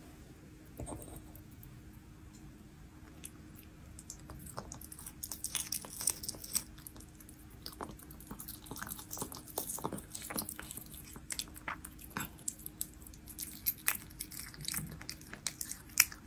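Devon Rex cat chewing raw meat: a run of quick, irregular clicks and smacks from its jaws, busiest from about four seconds in.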